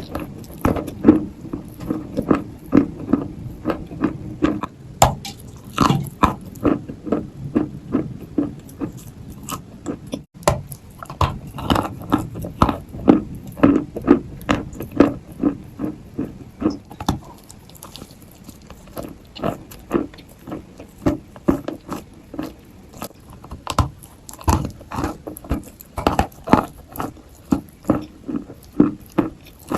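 Dry, powdery Turkestan white clay being bitten and chewed close to the microphone, a steady run of crisp crunches about two a second.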